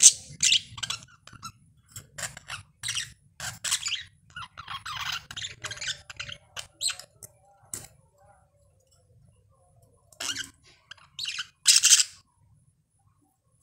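Male budgerigar warbling: a run of short, high chirps and scratchy notes that breaks off for about two seconds past the middle, then a few loud chirps near the end.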